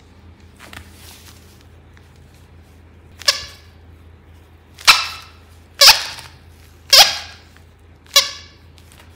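Maltese dog barking five times, short sharp high-pitched barks about a second apart, starting about three seconds in.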